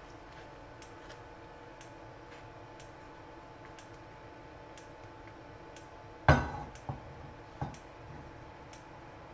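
Faint regular ticking, about one tick every two-thirds of a second, over a low steady hum. About six seconds in, a sharp knock on the nonstick frying pan rings briefly, followed by two lighter knocks.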